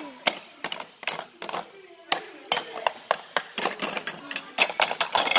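A rapid, irregular run of sharp clicks and taps, several a second, with one of the loudest near the end.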